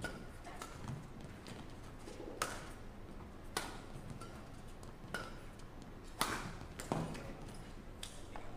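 Badminton rackets striking a shuttlecock in a doubles rally: a string of sharp smacks roughly a second apart, about seven in all, the loudest a little over halfway through.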